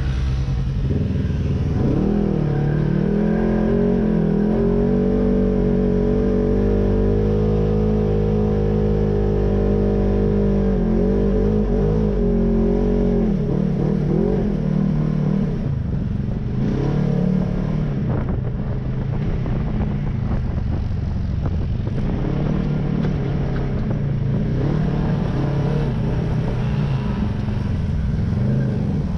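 Polaris RZR side-by-side engine heard from inside the cab, driving under throttle. Its pitch holds steady for the first half, then rises and falls as the throttle is worked, with scattered knocks and rattles in the second half.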